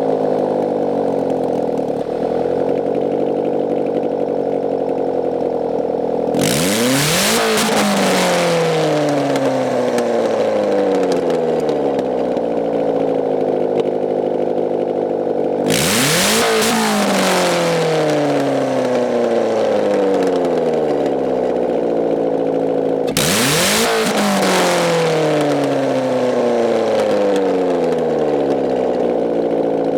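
1993 Saturn SW2's 1.9-litre four-cylinder engine running with no exhaust manifold, open straight off the head, and revved at full throttle three times. Each rev rises sharply, then winds back down over several seconds, very loud throughout.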